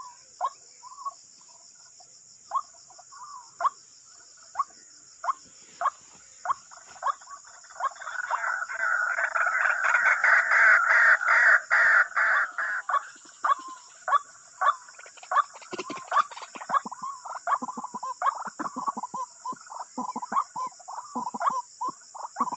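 White-breasted waterhens calling, a run of short repeated notes that swells into a dense overlapping chorus a third of the way in, then goes back to single calls. A steady high chirring of insects runs underneath.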